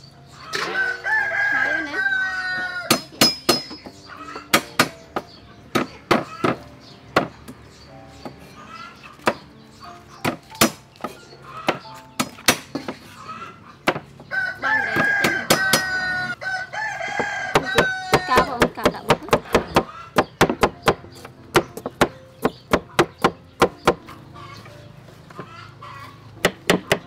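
A rooster crows twice, two long crows about fourteen seconds apart, over repeated sharp strokes of a knife chopping on a wooden cutting board that come quick and regular in the second half.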